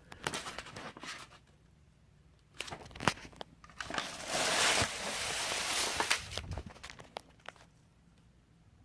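Handling noise: scattered clicks and light knocks, with a few seconds of rustling and rubbing in the middle, and quiet stretches between.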